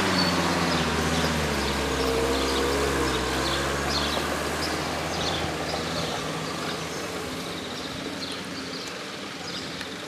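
Minibus engines running as the vans manoeuvre, the engine note shifting in pitch in the first few seconds, then settling and slowly fading as a van pulls up.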